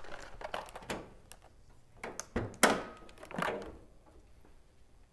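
Hood of a 1986 AMC Eagle being popped open: light clicks and handling noises in the first second, a sharp thunk of the hood latch letting go about two and a half seconds in, then a softer noise as the hood is raised.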